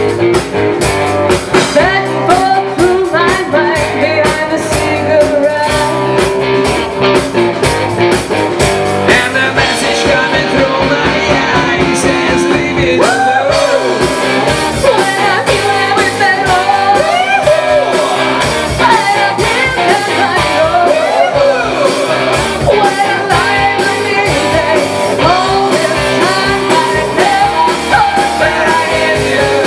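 Live rock band playing with a steady drum beat, with a woman and a man singing into handheld microphones.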